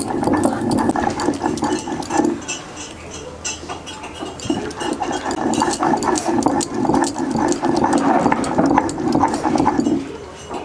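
Red chillies being ground to a paste on a stone slab with a stone roller (shil-nora): rhythmic stone-on-stone rolling and grinding. It breaks off for about two seconds after the first couple of seconds, then resumes and stops near the end.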